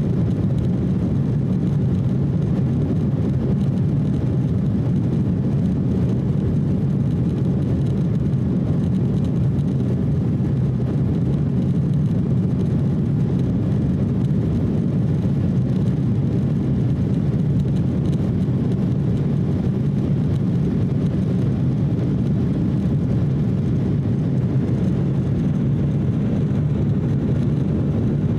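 Steady cabin noise of an Embraer E170 airliner climbing after takeoff: the deep, even drone of its General Electric CF34 turbofans and the rush of air past the fuselage, heard from a window seat.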